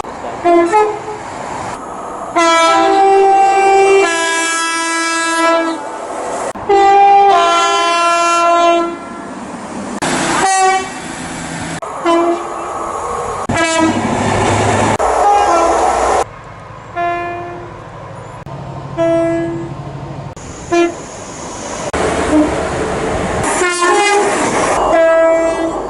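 British train horns sounding one after another, mostly two-tone blasts that go from a higher note to a lower one, with sudden cuts between clips. In the middle stretch a train's running noise carries a few short toots.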